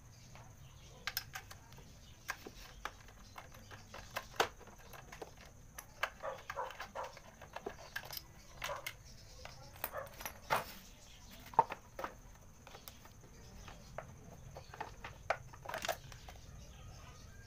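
Irregular clicks, taps and clinks of a hand tool on bolts and of a plastic-and-metal crankcase top cover being handled as it is unbolted and lifted off a Mio Sporty scooter, with a few brief rattles and a sharper knock about two-thirds through.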